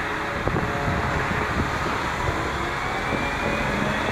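Diesel engine of a 75-ton Liebherr mobile crane running steadily, mixed with street traffic noise, with a faint whine rising slowly near the end.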